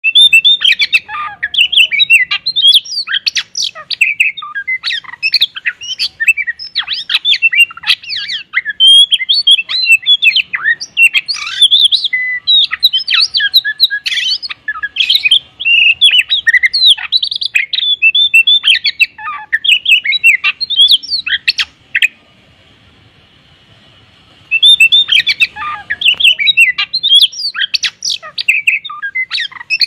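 Oriental magpie-robin (kacer) singing a fast, varied run of chirps, whistles and harsh squawky notes packed with mimicked calls. The song breaks off for about two seconds near the end, then resumes.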